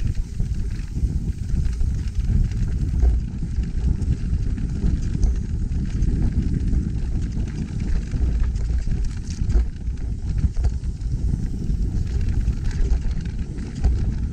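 Trek Rail electric mountain bike ridden over a rough trail: a steady low rumble of tyres and wind on the microphone, with scattered clicks and knocks of the bike rattling over the ground.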